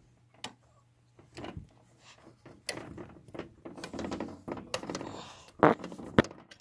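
Icicles hanging from a roof edge being grabbed and knocked by hand: a run of knocks, scrapes and cracks of ice, with the two sharpest cracks near the end.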